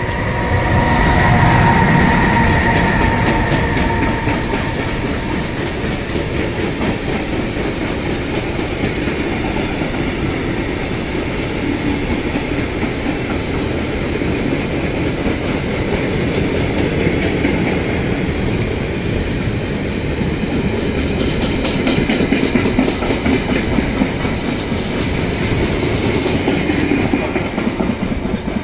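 A freight train passes close by. Electric locomotive EU43-006 goes by first, with a high steady tone over its rumble for the first few seconds, then a long string of freight wagons rolls past with a steady rumble of wheels on rail. Near the end, a run of quick clicks comes as the wheels go over rail joints.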